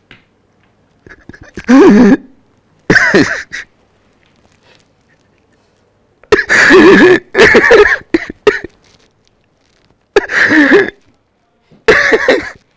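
A man sobbing hard in about half a dozen loud, breathy bursts separated by short silences, the longest lasting about a second and a half.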